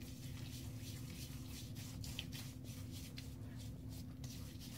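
Faint, soft rubbing of fingers spreading shaving lather over the face and neck, with a steady low hum underneath.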